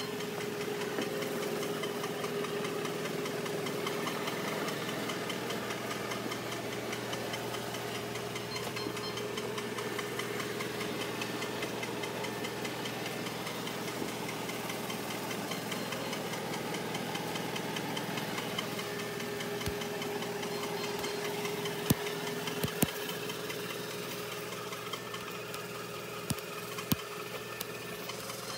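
Robot vacuum running across the floor: a steady motor and suction hum with a constant tone, and a few sharp clicks in the last third as it knocks against things.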